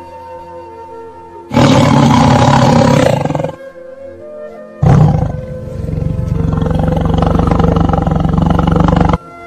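Big cat roaring twice over background music: a loud roar of about two seconds beginning about a second and a half in, then a longer, rough, pulsing roar of about four seconds beginning about five seconds in.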